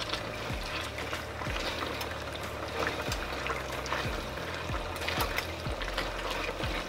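Tongs tossing and stirring fettuccine through a pot of thick, creamy Alfredo sauce: wet stirring with scattered clicks as the tongs knock the pot and snap shut.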